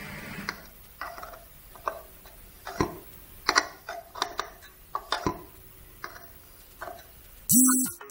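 Flap of a BMW E36 flap-type air flow meter being moved, giving irregular light clicks and knocks from the metal flap and its housing. Near the end come two short, loud buzzing tones.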